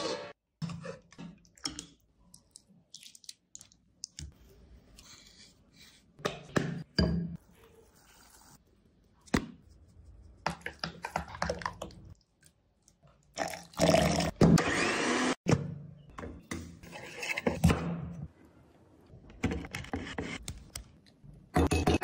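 A run of short kitchen food-prep sounds as mango is worked in bowls: knocks, scraping and stirring, with a louder stretch of mashing and stirring mango pulp in a glass bowl midway.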